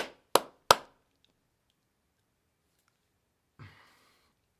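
A person clapping: three sharp hand claps about a third of a second apart, closing a short burst of applause. Near the end comes a faint, short breathy sound.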